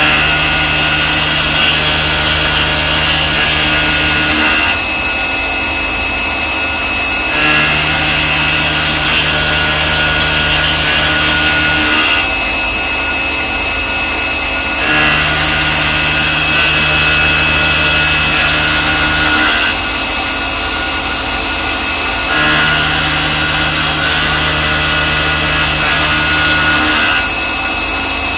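Mazak Integrex 35 multi-tasking machine cross-milling: a steady machine hum and cutting noise in a repeating cycle. A low steady tone holds for about four and a half seconds, then drops out for about three, about every seven and a half seconds.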